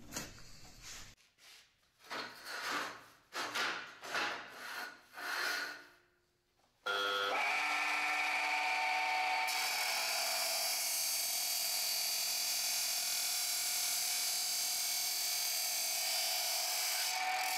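A few scraping, sliding noises as the steel tube is handled in the saw's vise. About seven seconds in, an abrasive cut-off saw with a 400 mm wheel starts suddenly and runs with a steady hum. A couple of seconds later a loud grinding hiss sets in as the wheel cuts through the rectangular steel tube, and it stops shortly before the end while the motor runs on. The wheel has been freshly dressed on a thin plate so that it cuts rather than melts.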